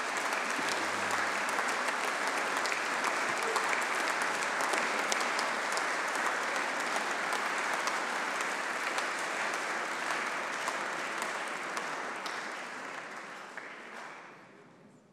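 Audience applauding steadily, the clapping dying away over the last few seconds.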